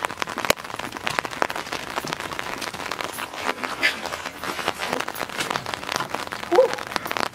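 Soda fizzing and spraying out of a shaken, Mentos-loaded bottle: a dense crackling hiss of spattering droplets. A short high yelp near the end.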